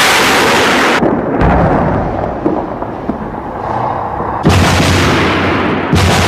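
Artillery fire: a towed gun's loud blast at the start, then a lingering rumble, then two more sudden heavy blasts about four and a half and six seconds in, each dying away over a second or more.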